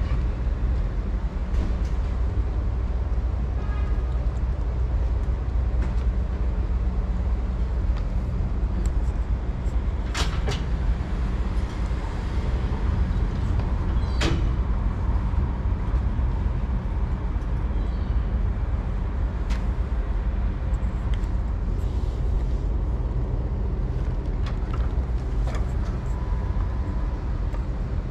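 Steady low rumble of street traffic and engines, with a couple of sharp clicks about ten and fourteen seconds in.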